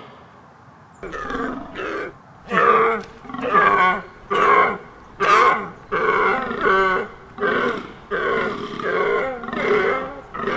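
Deer calling: a quick run of more than a dozen short, pitched calls, one after another at a steady pace, starting about a second in.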